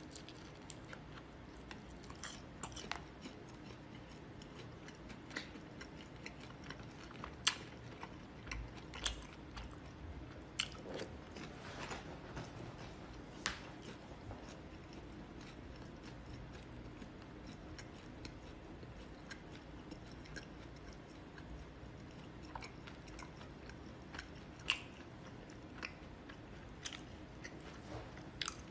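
A person chewing and biting food close to the microphone, with scattered sharp clicks and crunches, the loudest about seven and a half seconds in, over a low steady hum.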